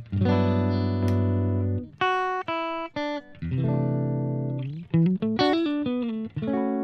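Clean electric guitar played through a Fender Tone Master Pro amp model with the bright channel on, a clean tone. It plays a held chord, a few single notes, another chord, then a quick run of notes ending on a ringing chord.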